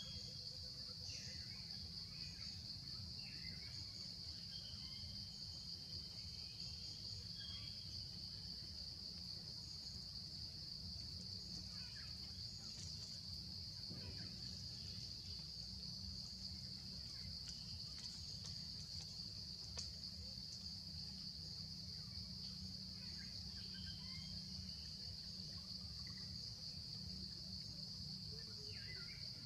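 Steady, high-pitched drone of an insect chorus, with faint, scattered bird chirps and a low rumble underneath.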